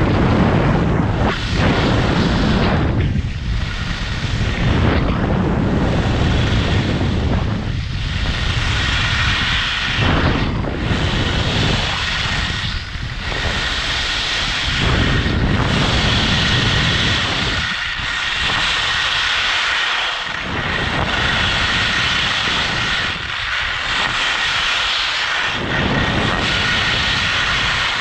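Wind buffeting a GoPro's microphone and skis carving down a steep, freshly groomed piste. The sound swells and fades with each turn, every two to three seconds, between a deep rumble and the hiss of edges scraping the snow.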